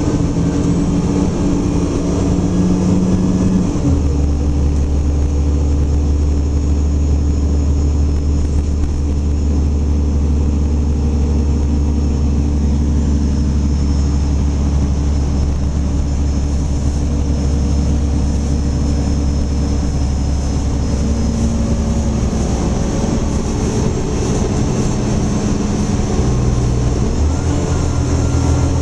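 Diesel engine and drivetrain of a 2009 Gillig Low Floor transit bus, heard from inside the cabin while the bus is under way: a steady low drone. The drone changes pitch about four seconds in and again near the end.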